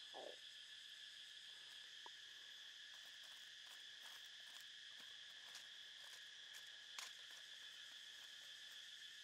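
Faint, steady chirring of insects in several high tones, with a few light clicks scattered through, the sharpest about seven seconds in.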